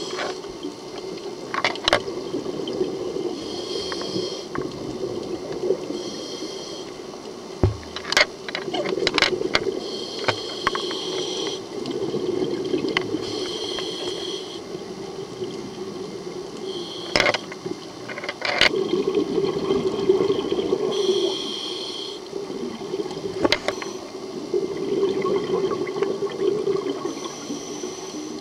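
Scuba regulator breathing underwater: a hiss every few seconds alternating with the bubbling gurgle of exhaled air. Scattered sharp clicks run through it.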